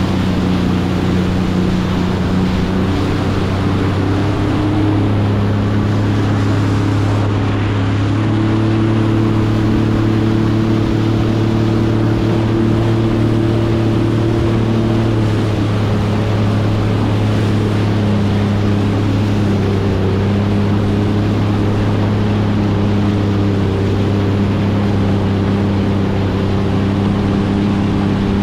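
Jet ski engine running steadily under way, its pitch shifting slightly now and then with the throttle, over the rush of water spray and wind.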